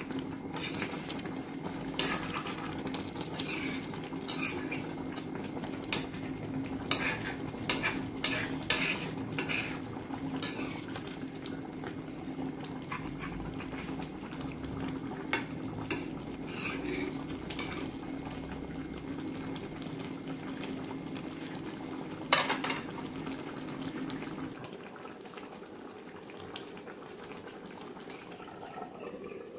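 A spatula scraping and knocking against a cast iron pan as a thick mutton curry is stirred: irregular clicks and scrapes, with one sharp knock about two-thirds through. A steady low hum runs underneath and stops near the end, after the stirring has ended.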